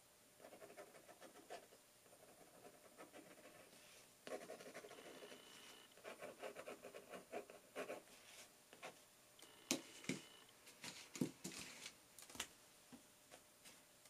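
Faint scratching of a fountain pen nib drawing short strokes on watercolour paper, then several sharp clicks and taps in the later part as the pen is set down and another pen picked up.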